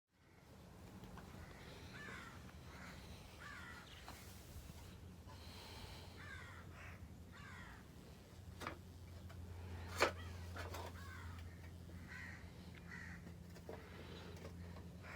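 Ceiling fan motor running with a steady low hum, while birds call repeatedly in short harsh notes; a couple of sharp clicks stand out about two-thirds of the way through.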